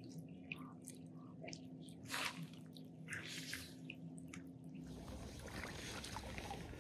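Light rain: scattered raindrops ticking and dripping close by, faint. About five seconds in the sound changes suddenly to a steady hiss.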